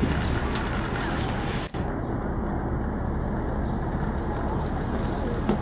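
Shuttle bus engine running with a steady low rumble, broken by a momentary gap a little under two seconds in.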